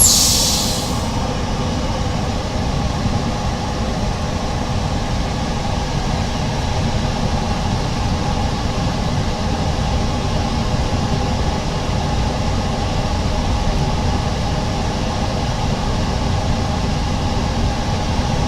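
Steady mechanical hum and rush of a running machine, with faint steady tones in it. A short hiss comes right at the start.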